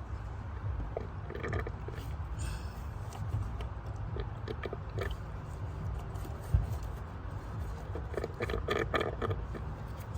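Water being sucked out of a spark plug well through a hose, with scattered slurping, gurgling noises and a sharp click about six and a half seconds in, over a steady low rumble. The water pooled in the plug well is the suspected cause of the misfire.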